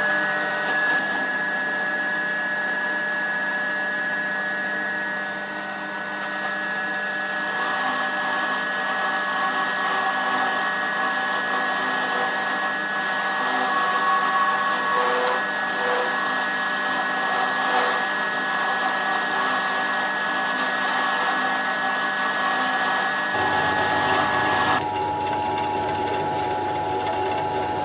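Home-built Gingery milling machine running, its end mill cutting a curved slot in an aluminium part as the rotary table is fed by hand: a steady machine whine with cutting noise over it. A few seconds before the end, the whine changes to a lower pitch.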